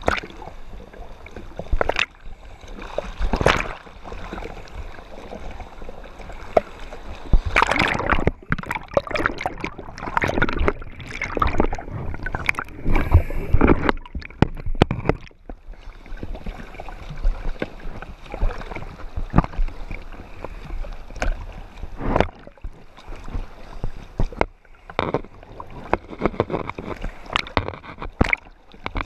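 Seawater sloshing and splashing around a camera held at the waterline as a diver swims through small waves, in irregular surges, with gurgling where the camera goes under for a while near the middle.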